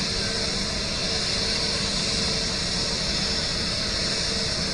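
Turbofan engines of an Airbus A320-family airliner running at idle as it taxis on the runway before take-off: a steady jet hiss with a faint, even whine that holds the same pitch throughout.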